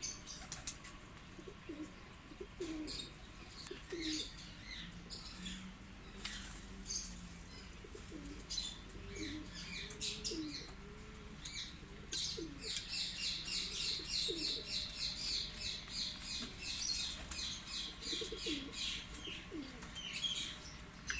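Teddy pigeons cooing in short low glides, over high chirping from birds; in the second half the chirps come in a fast, even run of about four or five a second for several seconds.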